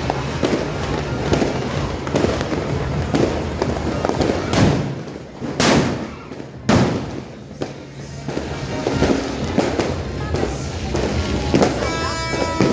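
Fireworks and firecrackers going off: a dense, continuous crackle with three louder bangs a little before the middle.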